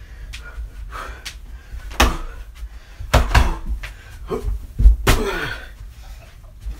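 Irregular heavy thuds and slams from a home workout, about half a dozen sharp hits spread unevenly, the loudest about five seconds in.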